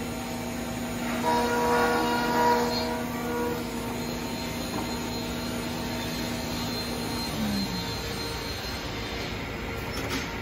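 Anderson Stratos CNC router's 10 hp spindle running with a steady whine while its bit routes a wooden cabinet door. The cutting gets louder about one to three seconds in. About three-quarters of the way through, the whine drops in pitch and fades.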